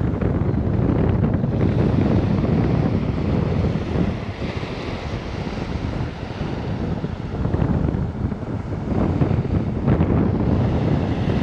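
Wind buffeting the microphone, with surf washing onto the beach behind it.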